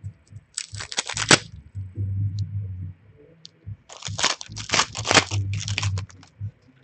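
A foil Upper Deck Series 1 hockey card pack wrapper being torn open and crinkled by hand. It comes in two spells, a short one about half a second in and a longer one from about four seconds in, with low dull handling bumps between them.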